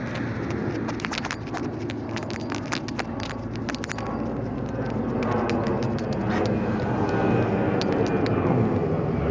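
Steady rushing of rough river water, with a run of sharp clicks in the first half and engine noise of a passing vehicle slowly growing louder through the second half.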